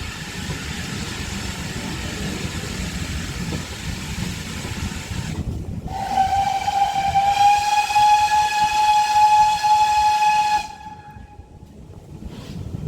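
Steam train running with a steady rush of noise, then the locomotive's whistle, one long steady blast of about five seconds that starts about six seconds in and stops sharply. The locomotive is GWR Manor-class 4-6-0 no. 7828 Odney Manor.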